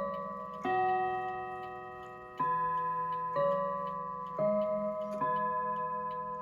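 Ansonia mantel clock's chime rods struck one note at a time, about five notes of a slow chime tune, each ringing and fading away, with the clock's ticking underneath.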